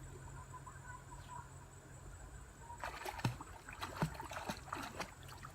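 Water splashing irregularly, beginning about halfway through, as something moves through shallow water, over a low steady background hum.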